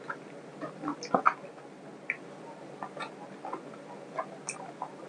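Mouth sounds of a person eating chicken curry and pav by hand: irregular wet clicks and smacks from chewing and lips, the loudest just over a second in.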